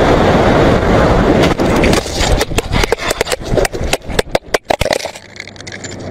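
A crash at road level: a loud scraping slide across the asphalt for about two seconds, then a rapid run of sharp knocks and clatters as the camera tumbles over the roadside gravel, settling about five seconds in.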